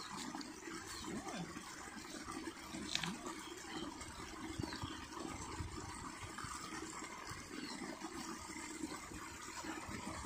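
Water trickling in a small stream, with a single sharp click about three seconds in.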